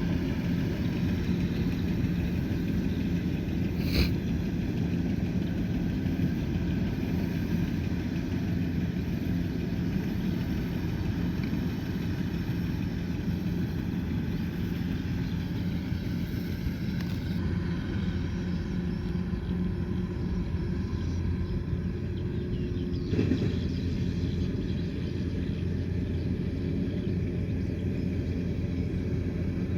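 Kubota combine harvester's diesel engine running steadily under load, a low even hum, with a sharp click about four seconds in and a brief knock later on.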